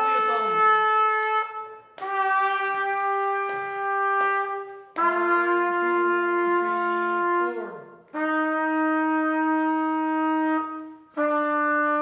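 A wind instrument playing a slow series of long held notes, each about three seconds long with a short break for breath between, each note a step lower than the last, as in a long-tone exercise.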